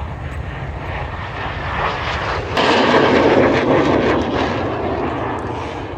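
BAC Strikemaster jet trainer's Rolls-Royce Viper turbojet as the aircraft flies past. The engine noise builds, is loudest from about two and a half seconds in, and eases off a little toward the end.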